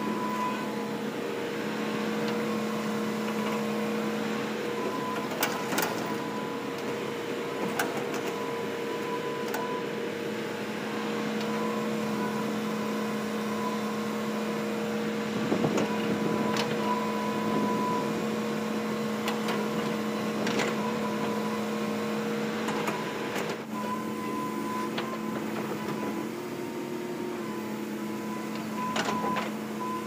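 Hitachi hydraulic excavator running steadily as it swings and lifts its bucket, a constant engine hum with a higher whine that comes and goes. There are a few sharp knocks scattered through it.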